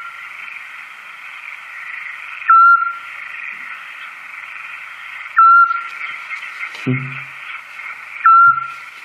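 Recording of a Eurasian scops owl played through a speaker: three short, steady whistled notes about three seconds apart, over a steady hiss.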